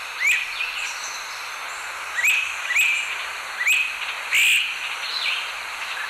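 Great crested flycatcher calling: about five loud, rising whistled calls at uneven gaps, the fifth the loudest, with a few fainter notes near the end.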